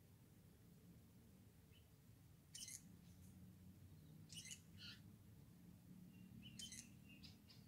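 Faint, short high chips from a hummingbird, in three brief clusters a couple of seconds apart, over a faint steady low hum.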